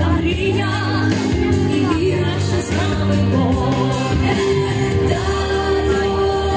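A song playing: music with a singing voice, holding long notes.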